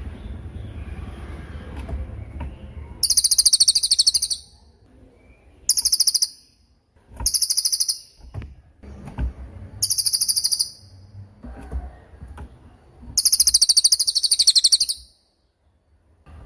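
Cililin songbird singing a masteran song in five separate bursts of very rapid, very high-pitched trills, the longest near the end.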